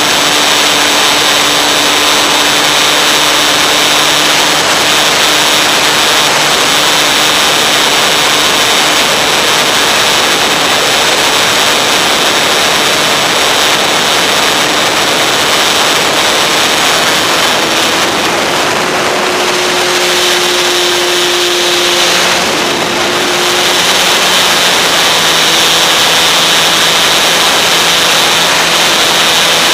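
RC model plane in flight, heard from its onboard camera: a steady motor and propeller drone under heavy wind rush. The motor's pitch rises a little past the middle for several seconds, then settles back.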